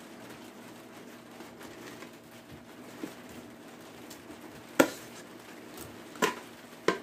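Metal spoon clinking against a stainless steel bowl as fresh cheese curd is scooped out into a plastic cheese mould: three sharp clinks in the last few seconds, the first the loudest.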